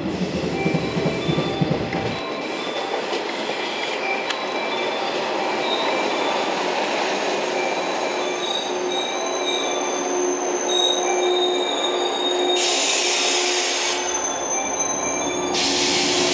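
A JR 115 series electric multiple unit pulling into a station and slowing past, its wheels and brakes squealing in several steady high tones over the rumble of the cars. Two loud hisses of air come near the end.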